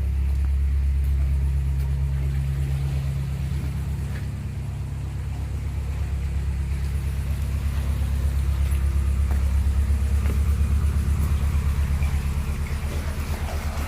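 Narrowboat's diesel engine running slowly, a steady low throb with a fast even beat.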